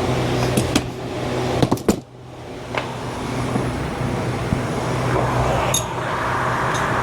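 A steady low mechanical hum, with a few sharp metallic clicks of hand tools on the ATV's shock mounting, two or three close together near 2 seconds in and another near 6 seconds.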